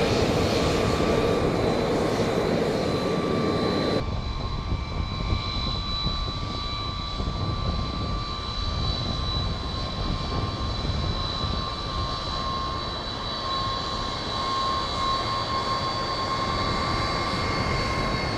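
F-35A Lightning II's single F135 turbofan jet engine running at low thrust as the jet rolls down the runway after landing: a steady jet roar with a high, steady whine over it. About four seconds in the sound abruptly turns duller and a little quieter.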